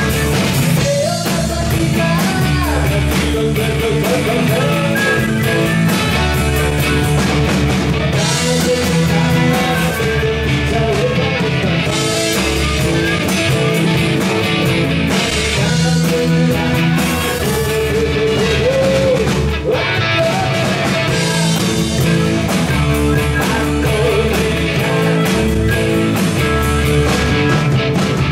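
Rock and roll band playing live: electric guitars, bass guitar and drums with a steady beat, and a voice singing.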